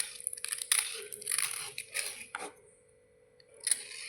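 Crunching bites into white slate bars: a run of crisp crunches over the first two and a half seconds, then one more sharp crunch near the end.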